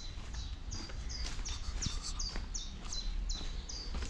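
A small songbird calling: a run of short, high chirps, each falling in pitch, about two to three a second, over a low outdoor rumble.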